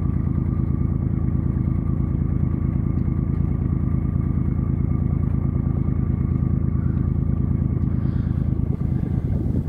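Sailing yacht's auxiliary engine running steadily while motoring, a low, evenly pulsing drone with a faint steady whine above it.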